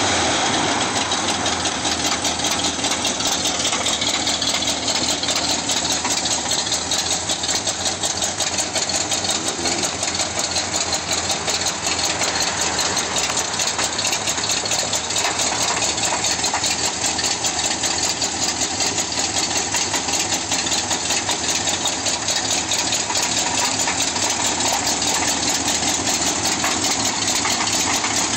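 1965 Oldsmobile Delta 88's V8 engine running steadily with a knock that sounds like rod knock but comes from loose flexplate-to-torque-converter bolts.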